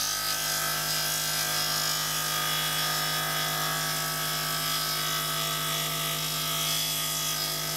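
Scroll saw running with its blade cutting through a pine block on a compound cut: a steady hum with a hiss of sawing above it.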